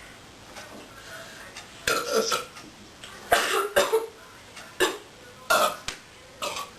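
A girl burping: a string of about five loud belches starting about two seconds in, the first two the longest, the later ones short. The burps come from gas off Coca-Cola drunk for the contest.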